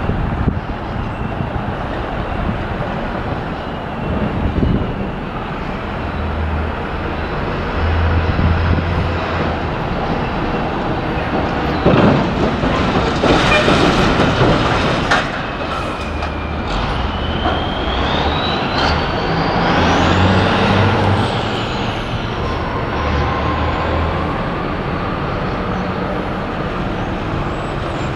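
An MP15 diesel switcher locomotive with a string of loaded tie cars rolls slowly toward the listener, its engine running with a low, uneven throb. About halfway through a cluster of sharp knocks and clanks comes from the train, then a high squeal that climbs and wanders in pitch for several seconds.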